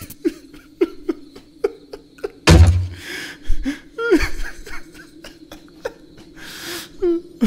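Cartoon spider sobbing in short gasping catches, about two a second, with one loud heavy thud about two and a half seconds in.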